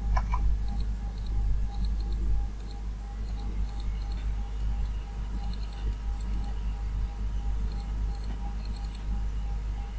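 Computer mouse clicking now and then over a steady low hum of recording background noise.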